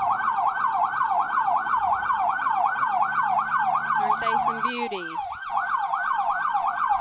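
Sheriff's vehicle electronic siren in fast yelp mode, its pitch sweeping up and down about four times a second without a break.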